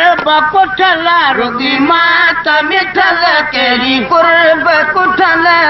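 Men singing a Sindhi molood, a devotional song in praise of the Prophet, with a gliding, ornamented melody into a microphone.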